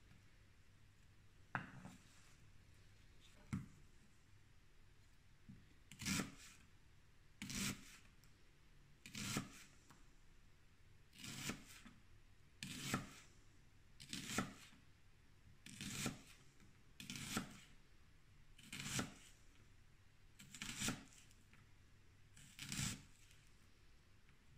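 Knife slicing a peeled onion into rings on a cutting board: about a dozen separate cuts, one every second and a half or so, the first two fainter.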